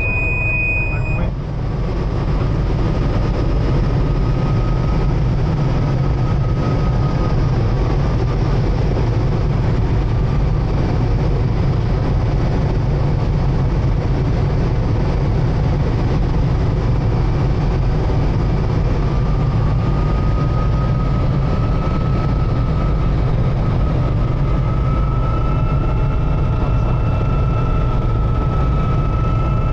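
Cabri G2 helicopter heard from inside the cockpit: steady rotor and piston-engine noise, with faint whining tones above it that climb slightly in pitch later on. A high steady tone cuts off about a second in.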